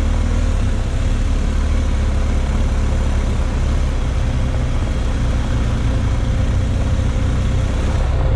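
Off-road vehicle engine running at a steady, unchanging speed.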